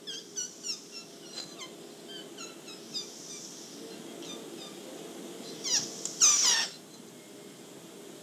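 An infant making a string of short, high, falling squeaks, then a louder squeal about six seconds in. It plays back from an old cassette tape, with a steady tape hum and hiss underneath.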